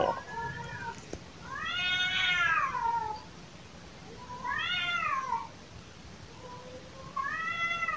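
Cats yowling at each other: long, drawn-out wailing calls that rise and then fall in pitch, a faint one at the start and then three louder ones spaced a couple of seconds apart. The narrator takes these cries for courtship calling between a male and a female cat.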